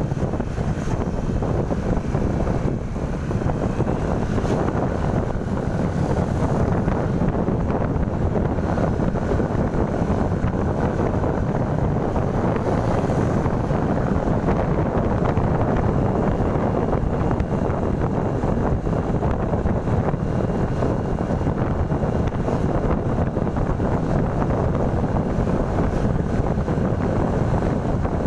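Steady wind buffeting the microphone over the low rumble of a moving vehicle.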